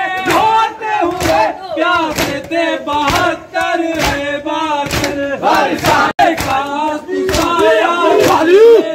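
Crowd of men chanting together while doing matam, beating their chests with their hands in a steady rhythm of about two strikes a second.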